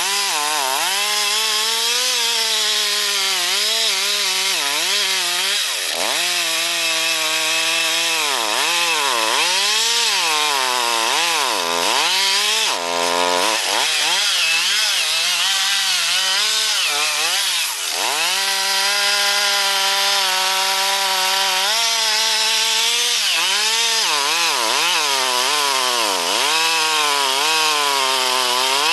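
Two-stroke chainsaw cutting wood. The engine pitch sags repeatedly as the chain loads in the cut and climbs back as it frees up.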